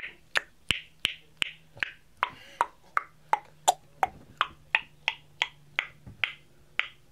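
Loud tongue clicks, the tongue popped hard off the roof of the mouth, repeated steadily about three times a second, each a sharp hollow pop.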